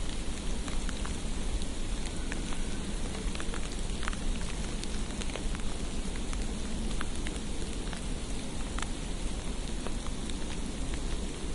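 Steady hiss of precipitation falling on a street, with scattered small ticks of drops or flakes landing, over a low, steady rumble.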